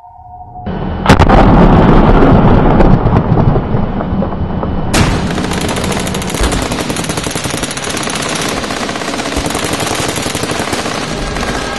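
Loud, rapid machine-gun-like rattle that starts with a sharp crack about a second in and runs on continuously, turning brighter and harsher about five seconds in.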